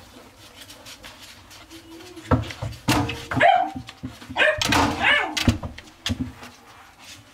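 Puppy giving a run of short, high yips and barks in the middle of the stretch, mixed with a few sharp knocks.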